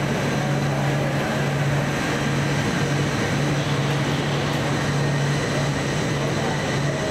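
BTS Gold Line rubber-tyred automated people-mover train running along the elevated concrete guideway, a steady mechanical rolling noise with a constant low hum throughout.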